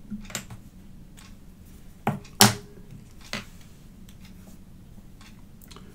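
Four short clicks and knocks of soldering tools being put down and picked up on a workbench, the loudest about halfway, over a faint steady hum.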